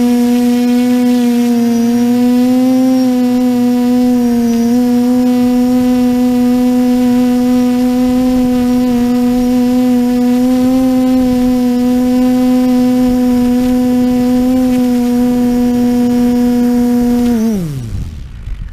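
TBS Discovery quadcopter's brushless motors and propellers whining steadily, close to the onboard camera, then spooling down quickly to a stop near the end.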